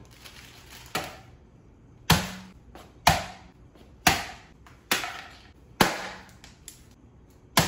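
A packet of dry instant ramen being smashed with a kitchen utensil: seven sharp blows about a second apart, each a quick crack that dies away fast.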